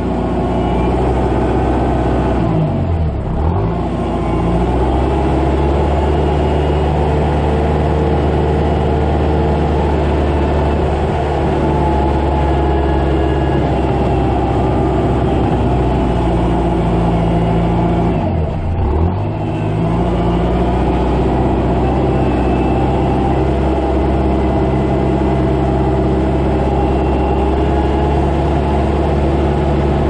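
Kubota tractor's diesel engine running steadily under the outside camera, its speed dipping and picking back up twice, about three seconds in and again a little past halfway.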